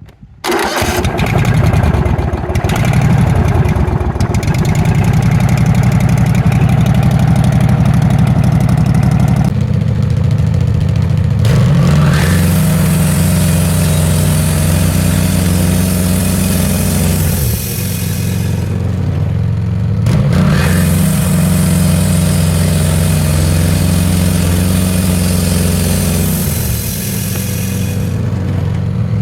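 Portable band sawmill: its engine starts and runs steadily, then speeds up, and the band blade cuts through an ash log. The cut adds a steady high hiss over the engine twice, for about six seconds and then about eight seconds, with a short break between.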